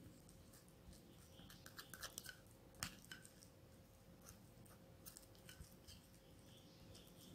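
Plastic fork scraping and clicking against a small ceramic bowl while stirring damp chickpea flour paste. Faint scattered clicks and scrapes, the sharpest about three seconds in.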